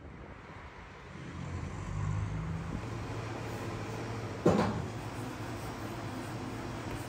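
Butcher-shop room sound: a steady low hum over background noise, with one sharp knock about two-thirds of the way through.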